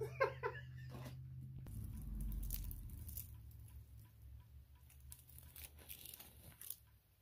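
Faint rustling of Christmas tree branches and small scattered clicks as an ornament is handled and unhooked from the tree.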